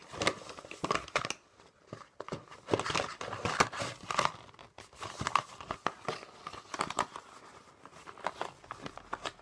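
Card and paper packaging being opened and handled: irregular crinkling and rustling with sharp crackles throughout.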